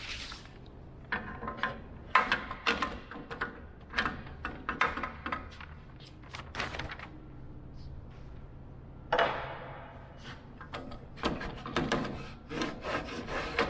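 Handling noise at a bandsaw table: paper plans rustling and a sled being slid and knocked into place, a string of irregular clicks and knocks over a steady low hum.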